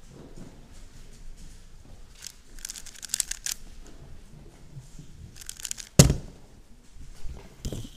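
Plastic speedcube layers being turned in quick bursts of clicking. About six seconds in there is a loud knock as the cube is put down and the hands slap the stackmat timer pads to stop it, then a smaller knock near the end.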